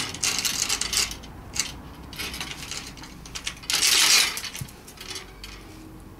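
Handling noise from hands working at the end of a wooden aerial rod: a string of short scrapes and rustles, with a louder, longer scrape about four seconds in.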